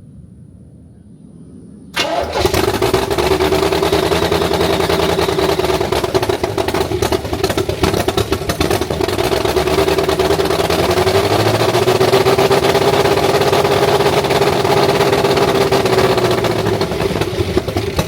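Chevrolet C3 Corvette V8 engine bursting into life about two seconds in and running loud and steady through its headers, with a brief dip in speed partway through, then shutting off at the end.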